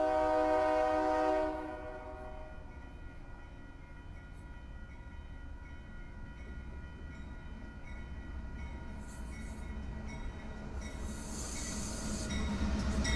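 Diesel locomotive air horn sounding a chord that cuts off about a second and a half in, with a crossing bell ringing on under it. Then the rumble of the oncoming train builds as the lead diesel locomotive rolls past close by near the end.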